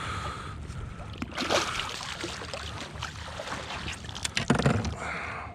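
Water sloshing and splashing around a fishing kayak, with scattered small knocks.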